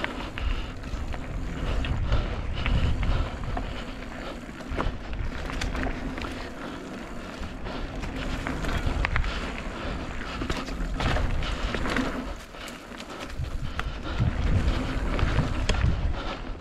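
Wind buffeting the microphone of a moving mountain bike on a dirt trail, with frequent rattles and clicks from the bike over rough ground.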